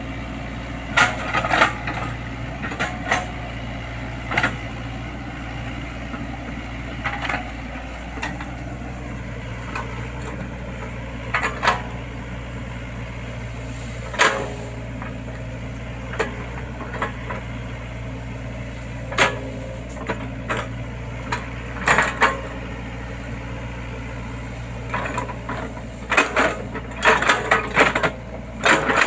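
Excavator's diesel engine running steadily, with scattered sharp knocks and clanks from the machine at work, several coming in quick succession near the end.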